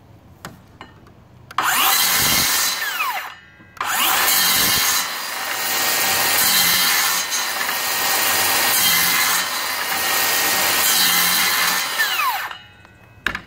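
DeWalt FlexVolt 60V DCS577 worm-drive-style cordless circular saw cutting through a wooden post. A short burst winds down in falling pitch after about a second and a half, then the saw starts again and cuts steadily for about eight seconds before winding down near the end, followed by a sharp knock.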